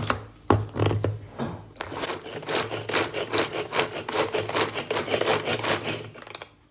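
Hand-operated vegetable chopper being turned, its blades chopping carrot pieces finer: a few separate knocks, then a quick, even run of rasping strokes from about two seconds in that stops near the end.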